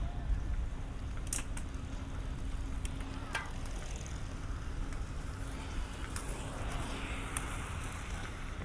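City street ambience: a steady low rumble of traffic with a faint even hum and a few scattered sharp clicks.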